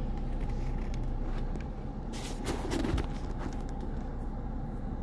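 Steady low hum of a car's engine and cabin, heard from inside the car, with a brief burst of noise about two to three seconds in.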